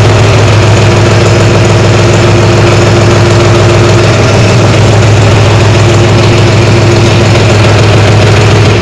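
John Deere 5105 tractor's three-cylinder diesel engine running steadily, heard from the driver's seat.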